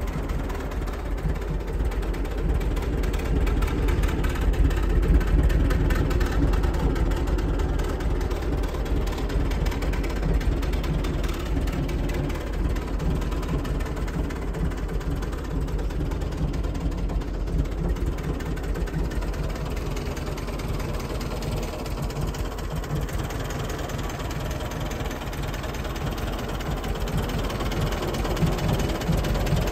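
Petrol engine of a David Brown aircraft tug idling steadily, a low even running sound.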